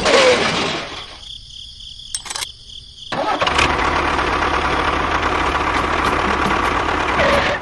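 Small motor of a toy-scale model vehicle starting up about three seconds in and then running steadily with a faint whine, after a quieter stretch broken by a single click.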